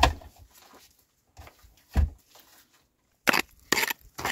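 A stone knocked into place in an earth-and-stone wall with a dull thud, and a second thud about two seconds later. Near the end come two short gritty scrapes of a digging tool biting into stony soil.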